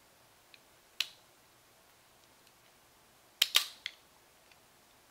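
Sharp clicks of a Glock 19 slide and its recoil spring assembly being handled and seated during reassembly: one click about a second in, then a quick, louder pair past the middle and a lighter click just after.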